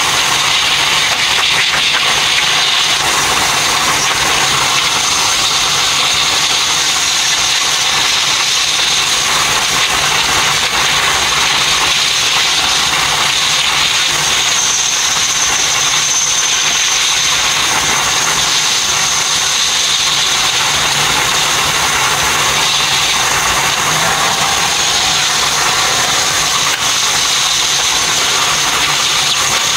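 A train running at high speed, heard inside the driver's cab: a steady rushing running noise with a thin high whine, unbroken throughout.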